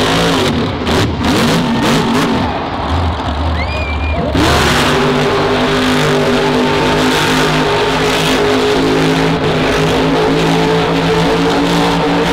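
Monster truck's supercharged V8 engine revving up and down, then about four seconds in opening up loud and holding steady at high revs.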